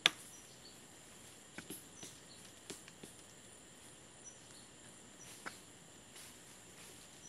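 Forest ambience with a steady high insect drone and short high chirps. A sharp knock right at the start is the loudest sound, and a few fainter knocks and clicks follow through the rest.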